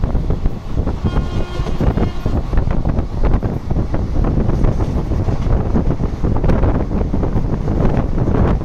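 Wind buffeting the microphone from the open door of a fast-moving train, over the low noise of the train running on the rails. A brief high steady tone sounds about a second in.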